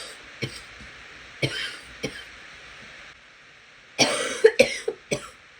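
A person who is sick and congested coughing: a few single coughs, then a run of several louder coughs about four seconds in.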